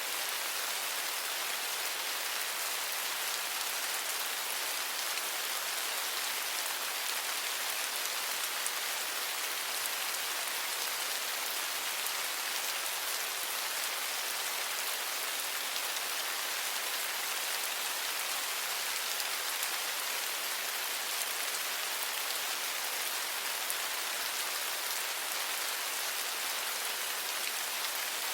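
Steady rain falling, an even hiss with faint ticks of individual drops, holding level throughout.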